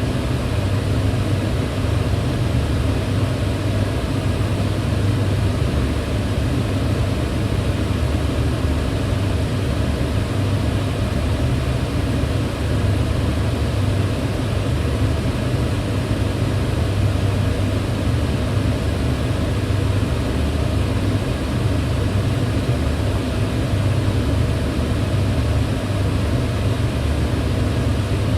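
Kitchen range hood fan running steadily: a constant airy rush with a low hum.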